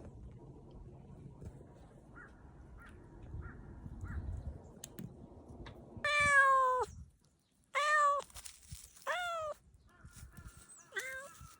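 Domestic cat meowing three times in a row about halfway through, the first a longer, loudest call that falls in pitch and the next two short, followed by a fainter short mew near the end.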